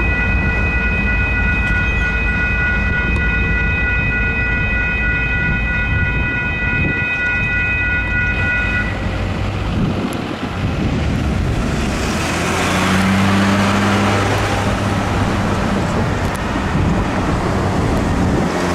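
Grade-crossing electronic bell ringing steadily, cutting off about nine seconds in as the crossing deactivates and the gates rise. Then the diesel engines of two Union Pacific locomotives running with a low rumble, swelling a few seconds later.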